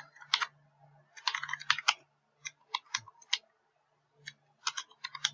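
Computer keyboard being typed on in short bursts of keystrokes with brief pauses between them.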